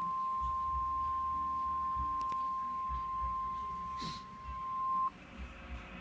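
Emergency Alert System attention signal: the single steady 1050 Hz Weather Radio warning tone, which cuts off suddenly about five seconds in. It announces the broadcast of a flash flood warning.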